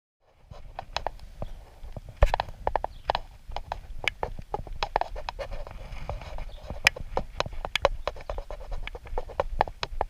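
Irregular clicks and knocks, several a second, over a low rumble, starting suddenly about a third of a second in.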